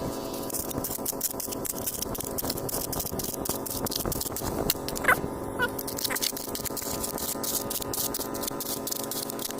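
Rapid crunching and scraping clicks of digging into soil to recover a metal-detector target, over a steady hum. A few short rising chirps come about five to six seconds in.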